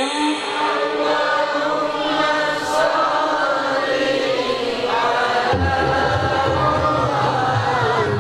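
A man reciting the Qur'an in the melodic tilawah style, drawing out long ornamented notes that glide up and down, amplified through a handheld microphone.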